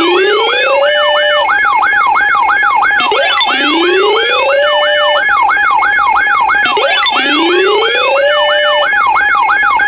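Layered electronic warning sirens of a mock Emergency Alert System broadcast. A fast yelping siren repeats about four times a second over a slower siren that rises and holds every three to four seconds, with steady alarm tones underneath.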